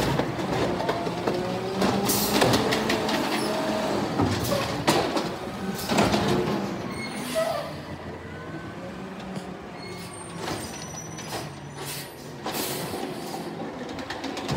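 Automated side-loader garbage truck working: the engine runs and the hydraulic arm whines as it lifts and tips a wheeled cart, with several sharp bangs of the cart and arm against the hopper. It is quieter in the second half.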